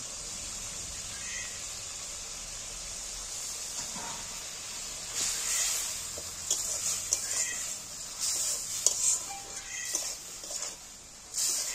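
A thick spiced potato curry sizzling steadily in a kadai as it is fried down. From about five seconds in, a flat metal spatula scrapes and stirs through it in quick, irregular strokes.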